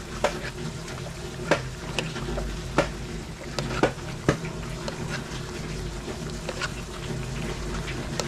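Metal ladle scraping and clinking against an aluminium wok while stirring and spooning coconut-milk stew, with several sharp clinks about a second apart over a steady low hum.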